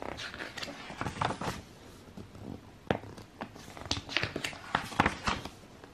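Glossy pages of a theatre programme being handled and turned: irregular paper rustles and crackles.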